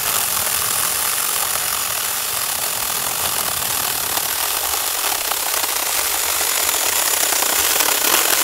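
Tomyvic 6-inch cordless mini electric chainsaw running steadily as its chain cuts through a log.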